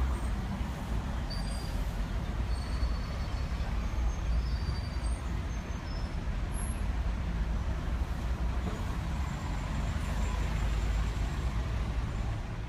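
Road traffic with double-decker buses running and passing close by: a steady low engine rumble.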